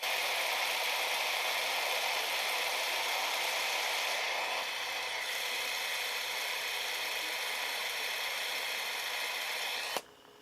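Fidget spinner spinning, its ball bearing giving a steady whirring hiss that eases slightly about halfway through. It cuts off suddenly with a click near the end as the spinner is stopped.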